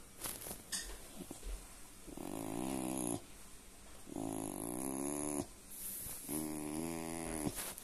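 Rough collie "purring": three drawn-out, low rumbling groans, each about a second long and about two seconds apart.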